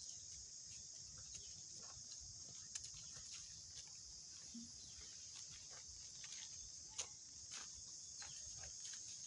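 Faint, steady high-pitched insect drone from crickets or cicadas, with a few scattered small clicks.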